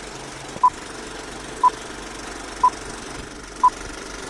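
Film countdown leader sound effect: a short pure beep once a second, four times, one per number, over a steady projector-like rattle and hiss.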